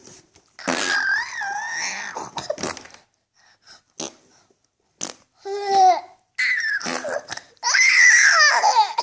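Six-month-old baby laughing and babbling in high-pitched bursts, with a long, loud squealing laugh near the end.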